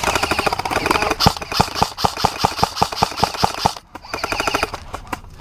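Airsoft electric rifles firing on full auto, a rapid stream of sharp clattering pops. The firing breaks off briefly about four seconds in, then a short last burst follows.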